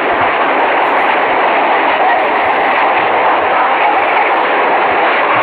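Loud, steady roar of rushing floodwater.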